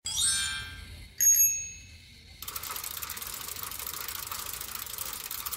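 Two bell dings about a second apart, the first bright with many ringing overtones, the second thinner and higher, each fading out. A steady hiss follows and runs on.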